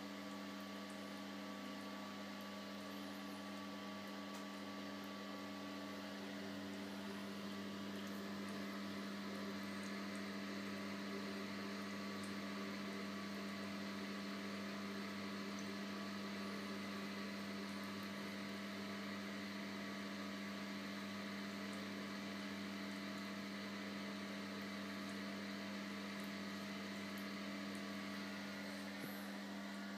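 Steady hum with a faint fizzing hiss over it from a Lush Cinders bath bomb dissolving in bath water.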